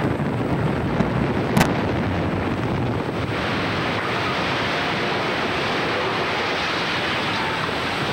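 Explosive demolition charges cutting the columns of an earthquake-damaged freeway overpass: one sharp blast about a second and a half in, over continuous rushing noise that gets brighter about three seconds in as the span comes down in dust.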